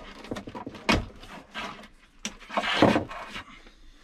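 Handling noise from a thick wiring loom being forced through a tight opening in the car's body: a sharp knock about a second in, then a longer scraping rub near the end, with small clicks between.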